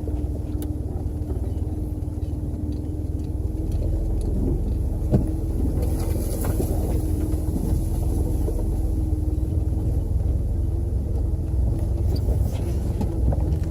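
A vehicle driving along a rough dirt trail: a steady low engine and road rumble with a constant hum. A few knocks and rattles come from the bumpy track, the sharpest about five seconds in.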